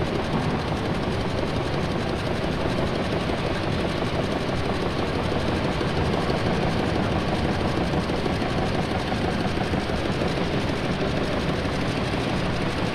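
1911 marine-type triple-expansion steam engine running steadily with a dense, even mechanical clatter.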